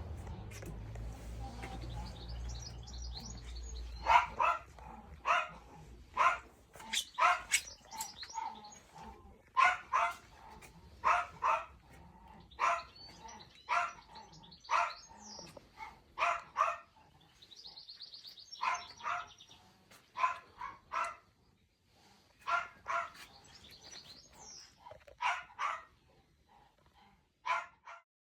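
A dog barking repeatedly in short barks, often two at a time, with birds chirping faintly. A low rumble fades out about four seconds in.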